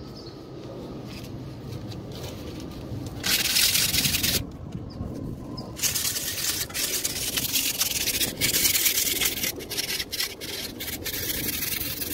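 Sandpaper being rubbed by hand over a brake disc's surface to take off worn marks, starting about three seconds in and going on in stretches of rough scraping strokes with short breaks.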